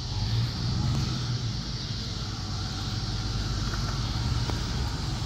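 Supercharged V8 of a 2003 Ford F-150 Harley-Davidson pickup running steadily, with a steady hiss above the engine note, amid tyre smoke from a burnout.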